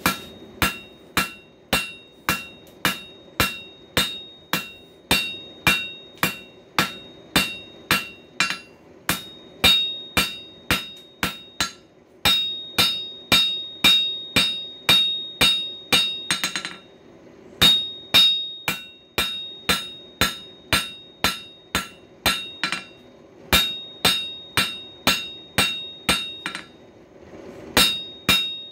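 Hand hammer striking hot coil-spring steel on an anvil: a steady run of ringing metal blows, about two to three a second, with a few short pauses between runs.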